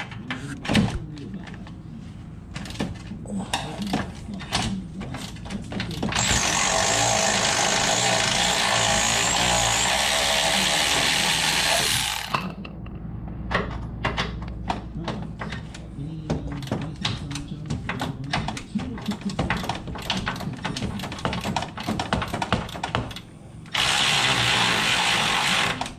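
Cordless power tool running on the truck's bumper-to-frame bolts in two spells, about six seconds from roughly six seconds in and a shorter one near the end, with sharp clicks and knocks between the runs.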